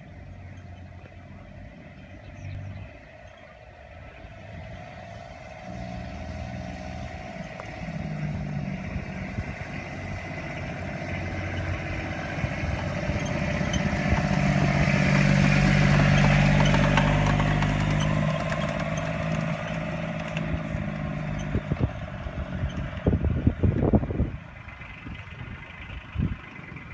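Side-by-side UTV's engine running as it drives a dirt track, growing louder as it comes close, loudest about halfway through, then fading as it moves away. A few sharp knocks near the end.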